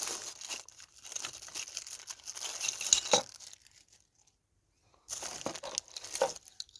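Crinkling of a small plastic packaging bag being handled, in two spells with a silent gap of about a second and a half between them, and one sharper crackle about three seconds in.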